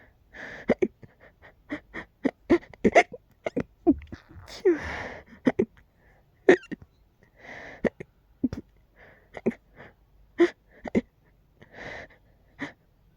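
A person hiccuping over and over, short sharp hiccups often several a second, mixed with a few longer breathy, sneeze-like bursts: hiccups shading into sneezes.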